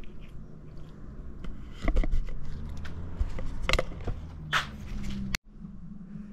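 Handling noise: a few sharp knocks and scrapes over a low steady rumble, cutting out briefly about five seconds in.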